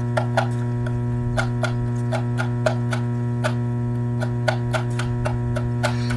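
Steady electrical hum with scattered short clicks and taps, a few a second at irregular spacing.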